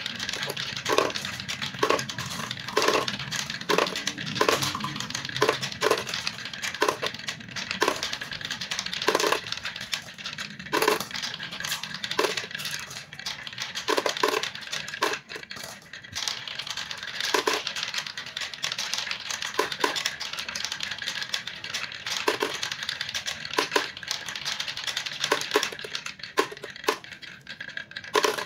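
Glass marbles rolling steadily down a wooden zigzag HABA marble-run slope, clacking against each other and dropping with frequent sharp clicks into a clear plastic bottle at the bottom. The clicks come less often near the end.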